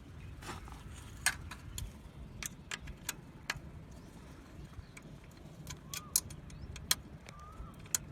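Scattered metallic clicks and clinks of a number-4 Allen key working the bolt that holds the dB killer in a Bajaj Pulsar 220 silencer, heard as irregular sharp ticks over a low steady rumble.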